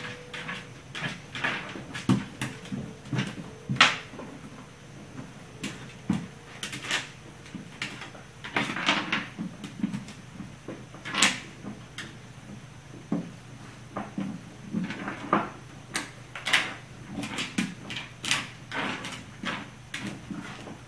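A puppy batting an ice cube around a hardwood floor: irregular clacks of the ice skidding and knocking on the wood, mixed with the clicking of its claws, a few every second.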